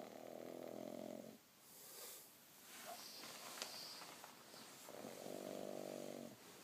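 Six-month-old pug snoring: two long, buzzing snores about five seconds apart, each lasting over a second, with softer, breathy sounds between them.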